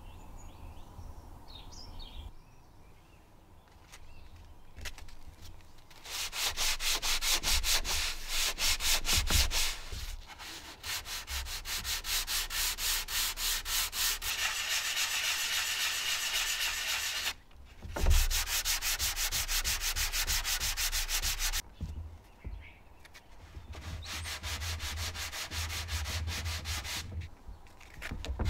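Wooden picture frame being hand-sanded with sandpaper: quick, even back-and-forth rubbing strokes starting a few seconds in and going in several runs with short pauses between. A single thump about two-thirds of the way through.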